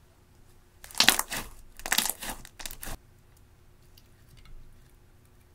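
Blue slime being stretched and folded, giving three loud bursts of crackling over about two seconds. After that, faint light ticks as fingers crumble crushed eyeshadow in a glass dish.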